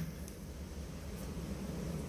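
Steady low background hum with a faint hiss.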